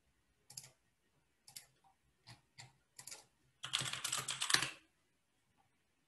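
Typing on a computer keyboard: a few separate keystrokes, then a quick run of typing lasting about a second, a little past halfway through.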